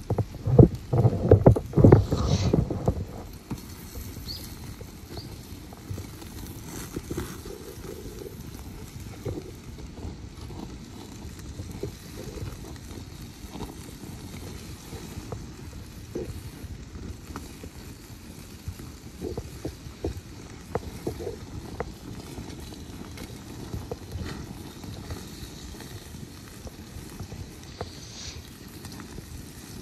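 Wood campfire burning, with scattered crackles and small pops over a steady low rush; loud, low rumbling bursts fill the first three seconds.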